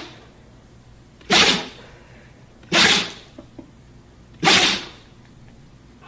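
Husky sneezing three times, about a second and a half apart, each sneeze short and sharp.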